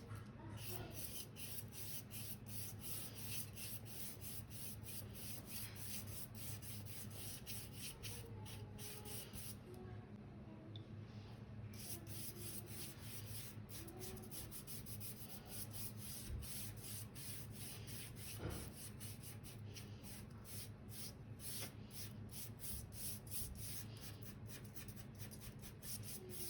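A bristle paintbrush scrubbing gouache onto paper in quick repeated strokes, a dry rubbing sound.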